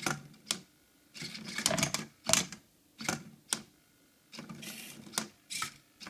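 Hobby servos of an Arduino-driven Rubik's cube robot (flipper, holder and rotate servos) working the cube: a string of short whirs, each ending in a sharp click, about two a second.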